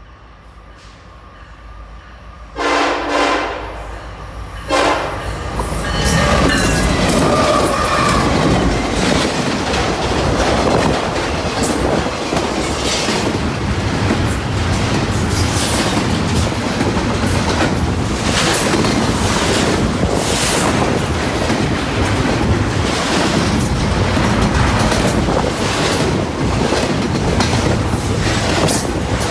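Norfolk Southern EMD SD70ACE diesel locomotive sounding its horn as it approaches: one long blast and then a short one. The train then rolls past, its wheels clicking steadily over the rail joints.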